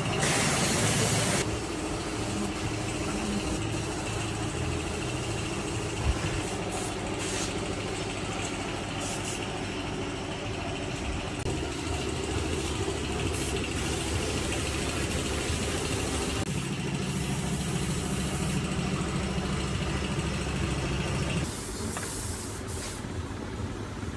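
Workshop machinery running with a steady drone, opened by a loud hiss of air lasting about a second and a half. The drone changes character a few times.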